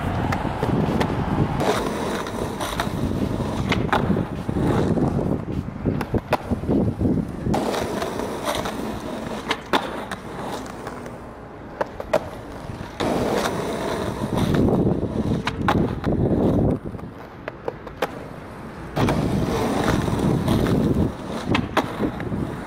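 Skateboard wheels rolling over asphalt and concrete, with repeated sharp clacks of the board popping and landing as a skater ollies up a curb. Two quieter pauses break the rolling partway through.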